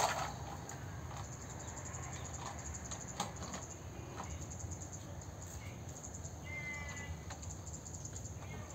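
Small plastic toy cars clicking and knocking on wooden boards as they are handled, over a low steady background, with a brief high chirp about six and a half seconds in.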